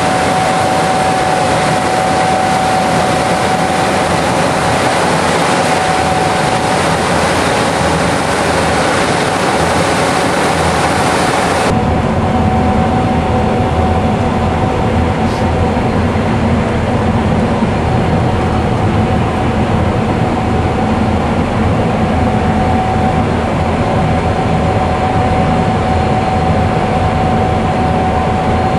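Gleaner S77 combine harvester running steadily while cutting wheat: a loud, even machinery drone with a constant high whine. About twelve seconds in the sound changes abruptly, losing most of its hiss and becoming a deeper rumble.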